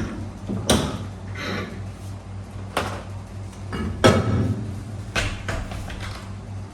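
Tire-shop work noise: a handful of sharp metal knocks and clanks, the loudest about four seconds in, over a steady low hum.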